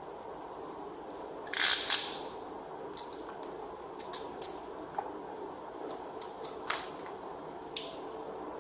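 Metal handcuffs being handled: sharp clicks and a jangling rattle. The loudest jangle comes about one and a half seconds in, with scattered single clicks after.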